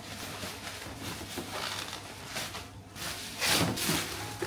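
Black plastic bubble wrap rustling and crinkling as a parcel is pulled open by hand, with the loudest crinkle about three and a half seconds in.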